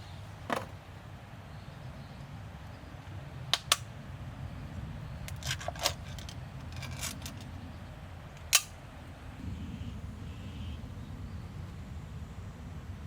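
A few short, sharp clicks and knocks, scattered and irregular, over a steady low rumble.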